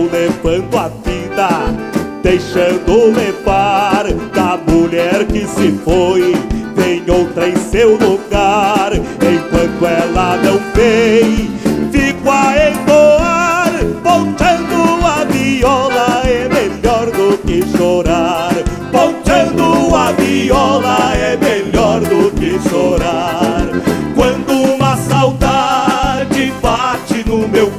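Live band playing a lively gaúcho tune, with a piano accordion carrying the melody over strummed acoustic guitars, bass and drums.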